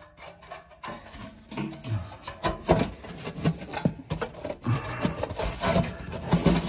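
Round galvanized sheet-metal duct scraping and knocking against the edges of a cut opening as it is worked through by hand: irregular rubbing and clicks of metal against wood.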